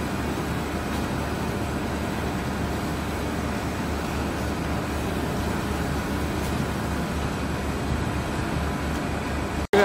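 Steady running noise of a roller heat transfer machine, with a few faint steady tones over it, dropping out for an instant near the end.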